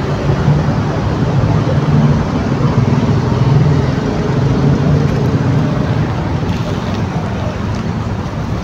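Steady road traffic noise from passing motor vehicles, a continuous engine hum with a rushing wash over it, swelling a little in the middle.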